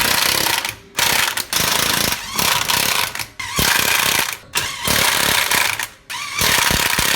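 Impact wrench hammering in repeated bursts of about a second each, around seven times, with short pauses between.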